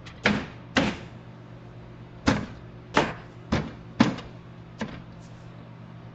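Seven sharp knocks at uneven spacing against a truck door as a speaker is worked into place in it.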